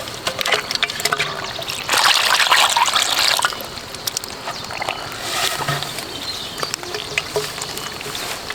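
Water trickling and splashing, with a louder rush of water about two seconds in that lasts about a second and a half, amid scattered small clicks and knocks.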